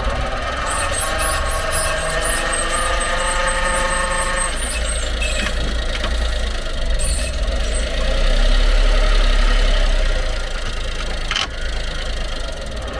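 Honda Acty HA9 kei truck running while it changes from forward to reverse, with noise from the propeller shaft's universal-joint bearing, which is worn out. The engine's level rises for a couple of seconds partway through, and there is a sharp click near the end.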